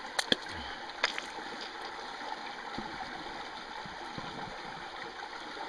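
Steady hiss of running creek water, with a few sharp light clicks in the first second or so.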